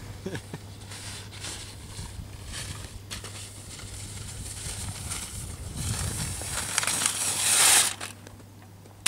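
Snowracer sled's runners scraping and hissing over packed snow. The sound grows louder to a loud rush just before eight seconds in, then cuts off suddenly.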